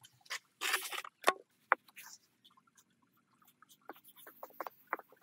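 A short scrape about half a second in, then scattered sharp clicks and taps of small hard objects being handled.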